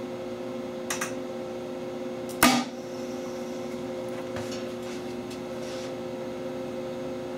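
A single sharp pop about two and a half seconds in: a charge of HHO (oxyhydrogen) mixed with compressed air igniting inside the PVC tube of a combustion test rig. A steady hum runs underneath, with a faint click about a second before the pop and a few light handling ticks after it.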